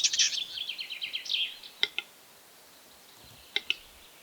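Small songbird singing a fast trill of repeated high notes that fades out after about a second and a half, followed by a pause and two short chirps.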